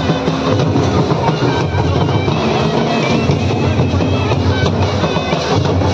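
Large folk drums beaten steadily for a circle dance, under the dense hubbub of a big crowd.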